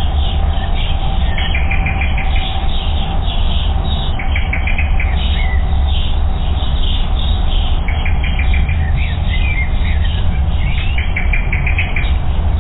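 Small songbirds calling and singing in short series of rapid repeated notes, several times, over a steady low rumble.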